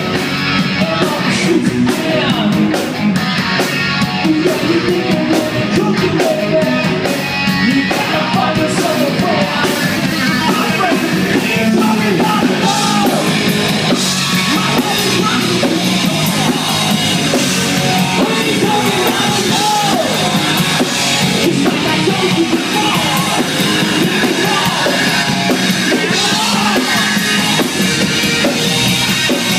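Live rock band playing: electric guitar, drum kit and a male singer, singing and shouting over the band.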